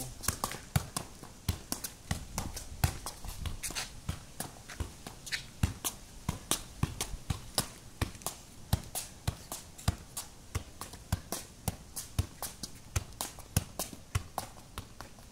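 A football being juggled with the feet: a steady run of light thuds as the foot strikes the ball, about three a second.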